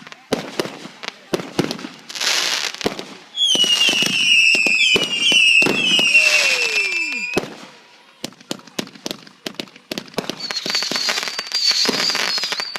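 Consumer fireworks going off: rapid pops and crackling throughout. About three seconds in, several short whistles fall in pitch in quick succession for about four seconds. A higher whistle repeats near the end.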